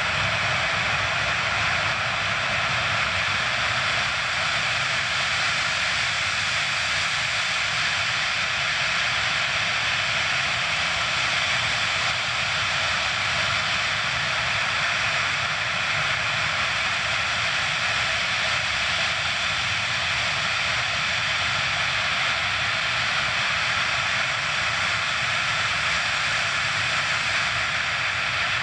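Four Ivchenko-Progress D-18T turbofans of an Antonov An-124-100 running steadily as the freighter taxis slowly: an even rushing jet noise with several high whining tones, no change in power.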